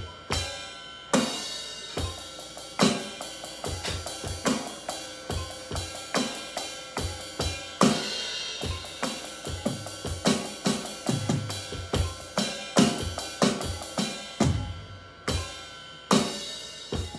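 Electronic drum kit played with sticks: a steady groove of kick, snare, hi-hat and cymbal sounds, with strong accents a little more than once a second and lighter hits between.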